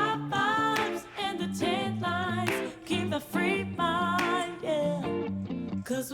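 Background song with a singing voice over plucked guitar.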